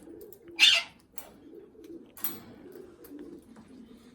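Cockatiels squabbling: one loud harsh squawk about half a second in and a few fainter short calls, over soft low calls from other birds.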